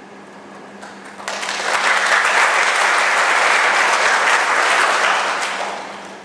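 Audience applauding, the clapping starting about a second in, holding steady, then dying away near the end.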